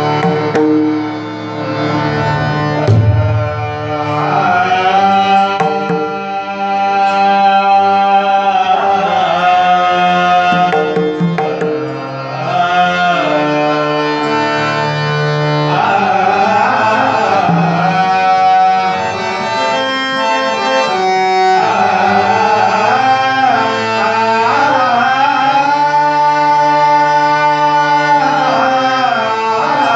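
Marathi devotional abhang sung by a male singer with pakhawaj drum accompaniment, the melody moving through long held notes.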